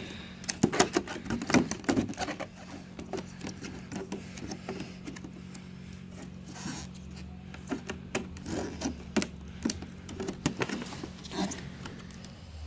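Headset packaging being handled and opened: scattered clicks, taps and rustles, busiest in the first couple of seconds, over a faint steady low hum.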